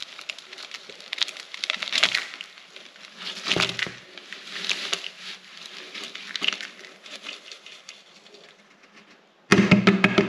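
Dry bacterial starter granules pouring from a plastic tub into a plastic bucket of granules: a crackling, pattering hiss of falling grains that swells and eases several times and then trails off. A sudden louder burst comes near the end.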